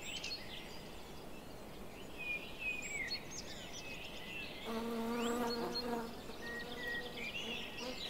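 Bumblebee buzzing in flight, a steady hum of a bit over a second about two-thirds of the way through that then fades, over birds chirping and singing in the background.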